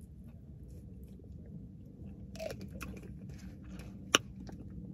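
Close-up mouth sounds of drinking and chewing over a steady low hum in a car cabin, with small wet clicks and one sharp click about four seconds in.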